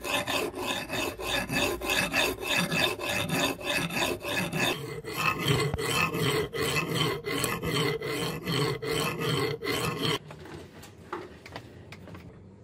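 Hand file rasping back and forth across the steel edge of an axe head cut from an old saw blade and held in a vise, in even strokes about two to three a second. The filing stops about ten seconds in.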